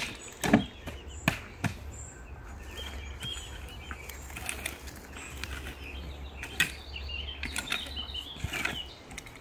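Steel shovel digging and scraping soil, with scattered sharp knocks as earth is packed around a plastic pond tub. A few short chirps come through in between.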